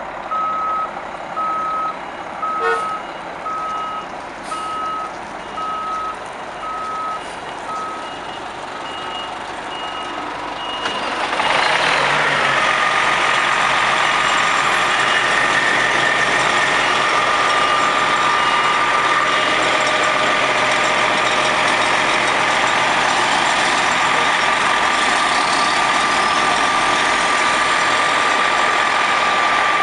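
Motor coach reversing beeper sounding about once a second. About a third of the way in it gives way to the much louder steady running of a coach's diesel engine close by, with a constant whine over it.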